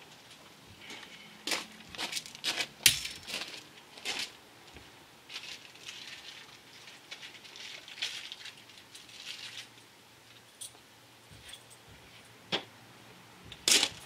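Footsteps crunching on loose gravel, irregular and uneven, with a few sharper knocks among them.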